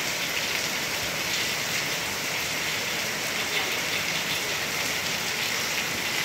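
Steady rain falling, an even hiss of drops with no letup.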